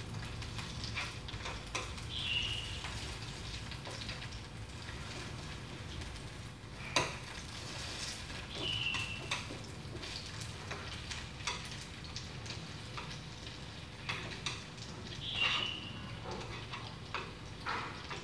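Chicken wings frying in a fish-sauce and sugar glaze in a nonstick pan on low heat, sizzling while chopsticks turn the pieces and click against the pan. A short high chirp sounds three times, about six seconds apart.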